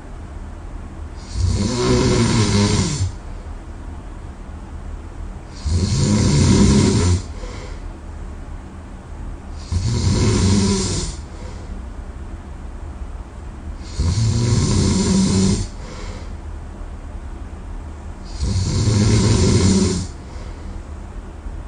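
A person snoring in deep sleep: five loud snores about every four seconds, each lasting about a second and a half.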